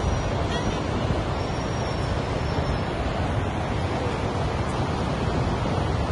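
Steady wash of sea surf mixed with wind buffeting the microphone, an even rushing noise heaviest in the low end.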